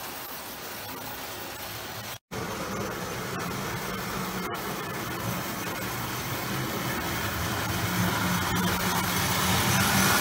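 1935 Lionel Red Comet O-gauge electric toy train running on three-rail tinplate track: a steady motor hum with the rattle and rumble of its wheels. The sound cuts out briefly about two seconds in, then grows louder as the train comes closer.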